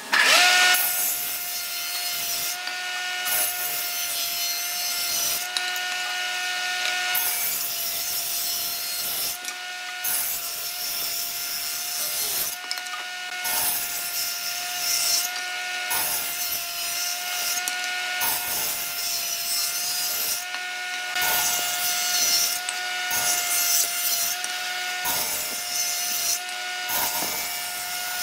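Table saw running with a steady whine while it rips wooden boards, the cutting noise rising and falling as each piece is fed through the blade.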